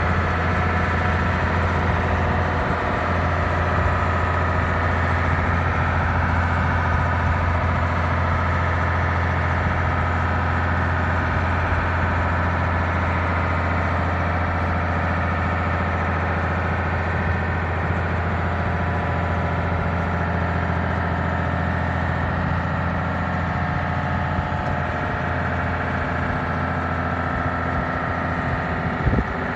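Mercedes-Benz Unimog U2150L truck's diesel engine idling steadily, with one short knock near the end.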